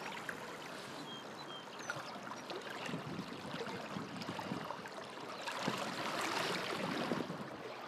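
River water flowing and rippling close by, a steady, shifting rush of current.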